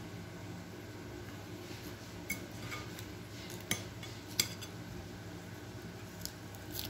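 Two metal forks tossing salad leaves in a glass bowl, clinking sharply a few times, over a low steady hum.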